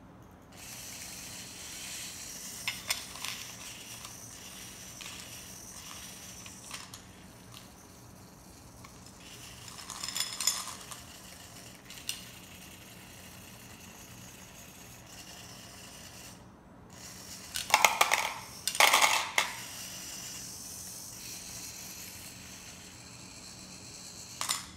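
EZ-Robot JD humanoid's servo motors whining as its arms move, with clicks and the plastic scoop clattering through candy-coated chocolates (M&Ms) against the glass bowl and cup. The candy rattles loudest twice, about ten seconds in and again around eighteen to nineteen seconds in.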